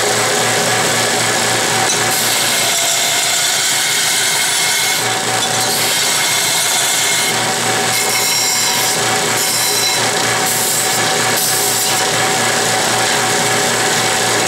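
Dayton 2x48-inch belt sander running steadily on its 1/2 hp capacitor-start motor, a noisy machine resonating a little through its metal base. From about two seconds in to about twelve, a metal piece is ground against the belt for deburring, adding an uneven grinding hiss.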